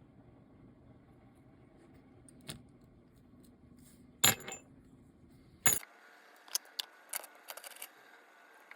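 Small metal clicks and taps from watchmaker's tools and parts while an Omega cal.1012 watch movement is taken apart: a single click, two louder sharp clicks in the middle, then a quick run of lighter ticks near the end.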